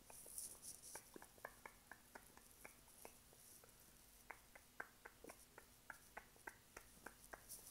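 Faint, soft ASMR sounds: a string of small clicks, about three or four a second, with light swishes of a makeup brush near the microphone about half a second in and again around three seconds in.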